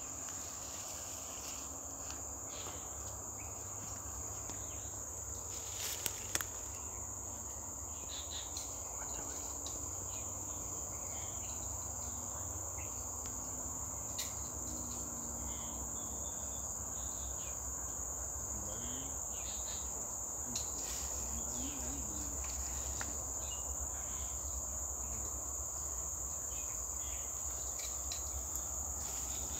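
Steady high-pitched drone of insects in the undergrowth, unbroken throughout, with a few faint clicks, two of them close together about six seconds in.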